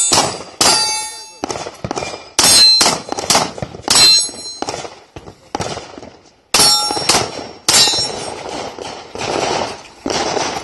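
Pistol shots fired in quick strings, each hit on the steel plate targets ringing with a bright metallic clang: about a dozen sharp cracks, several with a ring trailing after, with a short pause just past the middle.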